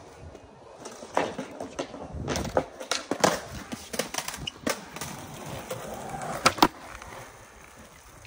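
Skateboard on concrete: wheels rolling with repeated clacks and knocks of the board, the two loudest close together about six and a half seconds in.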